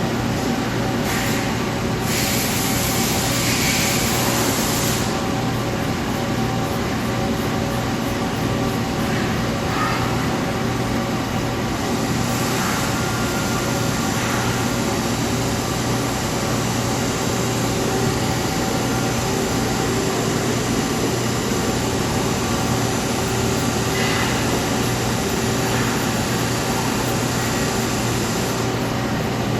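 Nomura NN-25YB Swiss-type CNC lathe running, a steady mechanical hum with fixed tones, with a hissing burst starting about two seconds in and lasting about three seconds.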